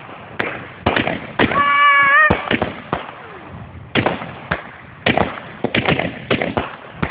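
Fireworks and firecrackers going off in irregular sharp bangs, several in quick clusters. About a second and a half in, a short held high tone sounds for under a second, rising slightly at its end.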